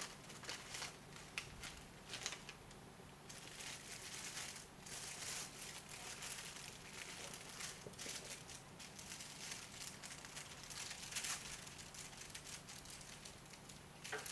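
Paper wrapper of a sterile glove package being handled, opened and unfolded flat, with crinkling and rustling that comes and goes.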